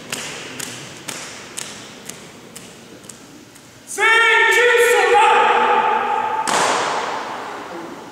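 Sharp taps at about two a second, growing fainter, then about four seconds in a loud, long shouted call held on one pitch, stepping slightly midway. It breaks into a rough noisy burst that fades away, like a drill cry.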